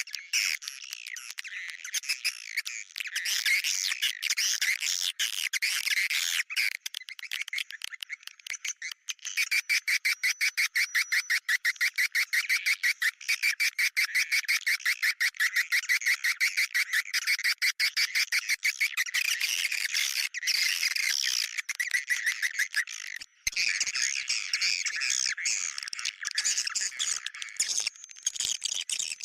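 Recorded swiftlet calls played as a lure sound for swiftlets: dense chattering chirps. About a third of the way in, a rapid, even pulsing sets in and runs for over ten seconds before the looser chatter returns.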